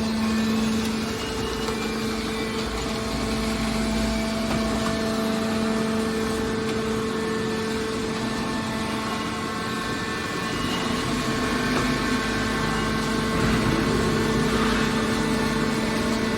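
Hydraulic metal baler running: a steady machine hum from its motor and pump, getting slightly louder a little past halfway through.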